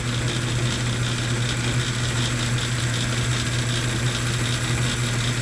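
Metal lathe running steadily with a low hum, its cutting tool turning a groove into a gummy urethane longboard wheel.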